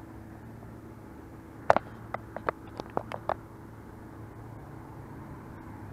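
A quick run of about eight sharp clicks and taps over a second and a half, the first the loudest, from unhooking and handling a freshly caught white perch. A steady low hum runs underneath.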